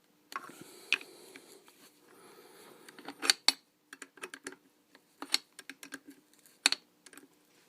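Scattered sharp clicks and taps of a hand tool working small metal fasteners loose on a Suzuki Spirit 5 hp outboard's carburetor linkage. The loudest pair of clicks comes a little after three seconds in, and another comes near the end.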